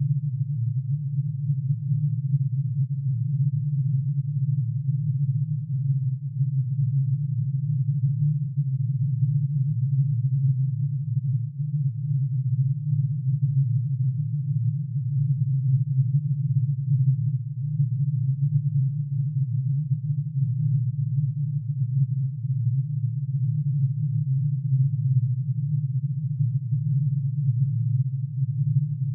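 Synthesized tone made from plutonium's atomic emission spectrum: many sine waves, one for each spectral line, summed and pitch-shifted into hearing range. The result is a steady, dense low drone with a fast flutter in loudness.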